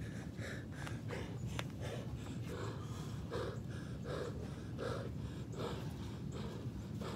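A man breathing hard from exertion after a run: rapid, heavy breaths about every 0.7 seconds, over a steady low rumble.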